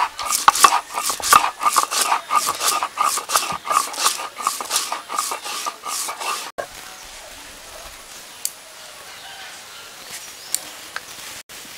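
Mustard seeds being crushed under a stone roller on a flat grinding stone: rhythmic crunching scrapes about four a second that stop abruptly after about six seconds, leaving only faint scrapes.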